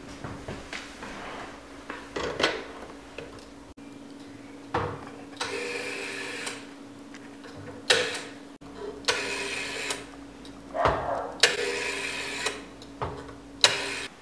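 Black rotary-dial telephone being dialled: the handset lifted with a clatter, then several spins of the finger dial, each a click followed by about a second of whirring, clicking return.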